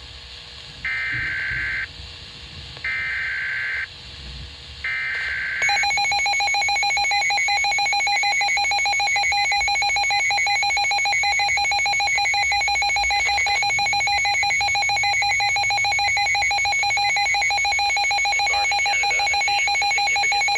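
Emergency alert broadcast signalling: three one-second bursts of data header tones with one-second gaps, then a loud, steady electronic attention tone announcing a tornado warning.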